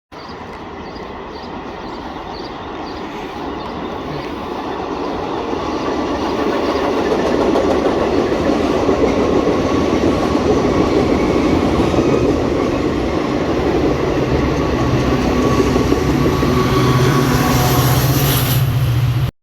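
A train approaching and running past on the rails: a rumble of wheels on track that grows louder over the first several seconds, then holds steady until it cuts off at the end.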